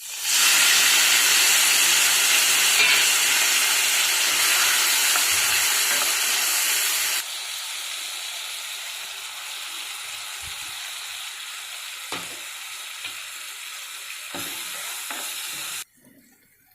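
Food sizzling as it fries in hot oil in a pan. The loud sizzle sets in suddenly, drops to a quieter sizzle about seven seconds in with a few faint knocks, and cuts off abruptly near the end.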